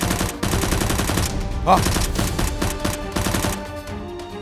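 Rapid automatic gunfire in bursts, dense at first and then thinning out, over background music; a short cry cuts through about two seconds in.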